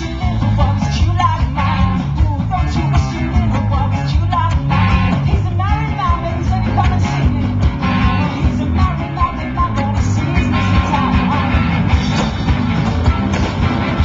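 Live rock band playing through a PA: a woman singing over electric guitar, bass guitar and a drum kit.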